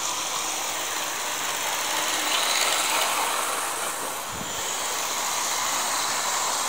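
Two Hornby model locomotives running at full power, their small electric motors and gears whirring steadily and wheels rattling along the track. A brief low thump about four seconds in.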